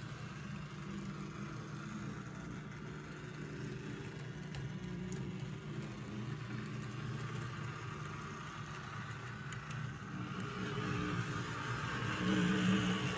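Model train running on the layout: a steady electric-motor hum with the rolling of its wheels on the track, getting louder near the end.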